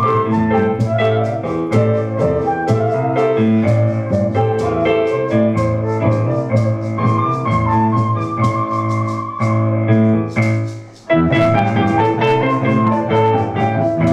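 Live instrumental music from a small ensemble of flute, cello and keyboard playing together. The music drops out briefly about eleven seconds in, then comes back.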